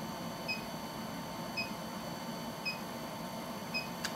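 Induction heater in operation, giving a short high electronic beep about once a second over a steady faint whine, with a single sharp click just before the end.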